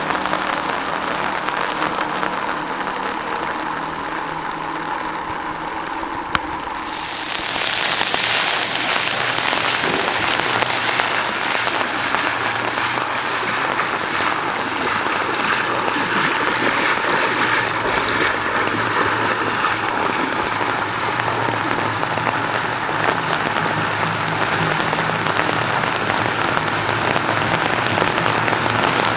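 Heavy monsoon rain pouring steadily onto a flooded street, with water splashing. A low steady hum sits under it for the first several seconds. About seven seconds in, a louder rush of splashing water comes in.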